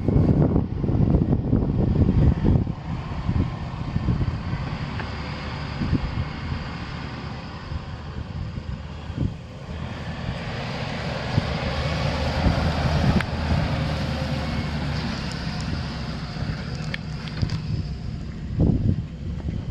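A 1998 Chevrolet 2500 pickup's 5.7-litre V8 engine running steadily. Wind buffets the microphone at the start and near the end.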